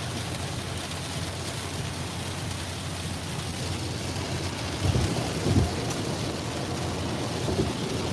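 Heavy rain falling on a moving car's roof and windshield, heard from inside the cabin as a steady hiss over low road noise. Two short, louder low thumps come about five seconds in.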